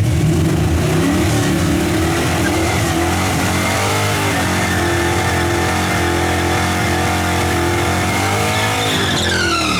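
Fox-body Mustang drag car's engine at full throttle on a run. The pitch rises through the revs, drops back about four seconds in, then climbs again until the sound cuts off at the end.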